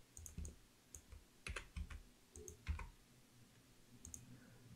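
Faint, scattered clicks of a computer keyboard and mouse, a handful of single presses a fraction of a second to a second apart.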